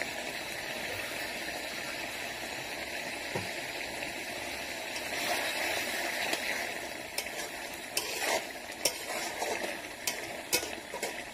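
Chicken and bottle gourd curry bubbling in an iron kadai while a ladle stirs it. From a little past halfway, the ladle scrapes and clicks against the pan several times.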